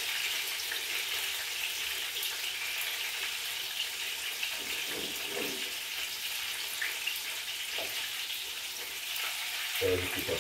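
Hot oil sizzling steadily as Jamaican fried dumplings and pieces of tuna fry, the dumplings in a frying pan and the fish in a pot.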